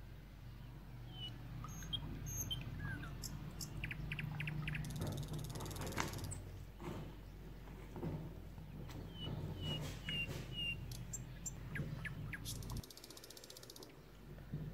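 Silicone spatula stirring a thickening milk and cornflour pudding in an enamel pot, scraping and tapping against the sides and bottom. Short high chirps come and go throughout, and a low steady hum stops about two seconds before the end.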